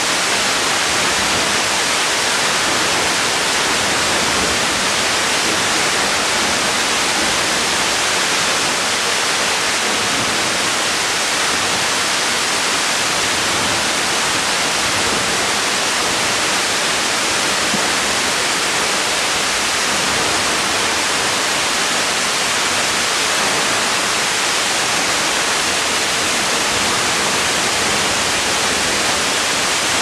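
A tall waterfall plunging onto rock and into a pool: a loud, steady rush of falling water with no change over time.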